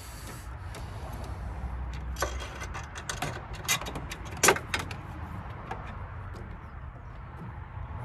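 Scattered clicks and knocks of hands working a universal car-battery clamp's metal hooks and rods around the battery under the bonnet, with one sharper knock about four and a half seconds in, over a low steady background rumble.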